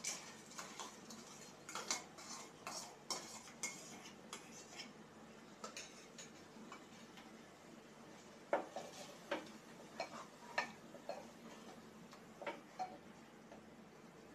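Steel spoon clinking against a steel bowl as washed red lentils are scraped into an aluminium pressure cooker, a quick run of clicks, followed from about eight seconds in by a wooden spatula stirring the lentils into the fried masala, with scattered knocks and scrapes against the cooker.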